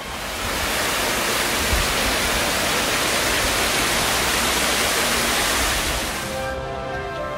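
Water pouring over the rim of a fountain's round basin and splashing into the pool below: a steady, loud rush of falling water. Background music comes back in near the end.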